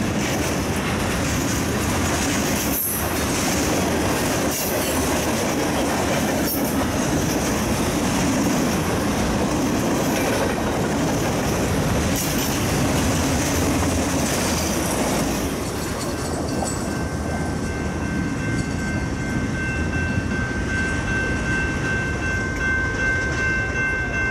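Freight cars, covered hoppers and boxcars, rolling past at speed with a loud, steady rumble of wheels on rail. About two-thirds of the way through, the hiss eases and a steady high-pitched wheel squeal comes in over the rumble and holds on.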